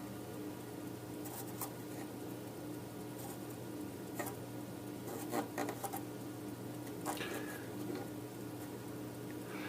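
Small clicks, scrapes and taps of hand tools and parts handled during soldering work on a circuit board, loudest in a cluster a little past the middle, over a steady electrical hum.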